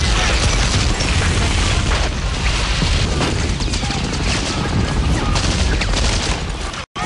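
Loud battle sound effects: deep booms and rapid gunfire over a heavy rumble, cutting off abruptly near the end.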